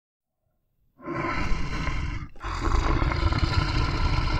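A bear growling: a deep, rough growl starting about a second in, breaking off briefly a little after two seconds, then going on.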